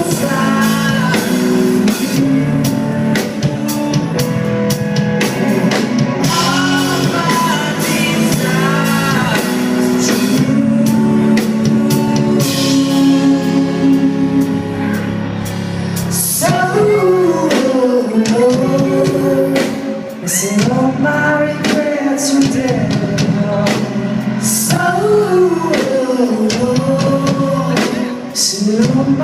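Rock song played by a band with drum kit and guitar and a singing voice; the vocal line stands out most in the second half.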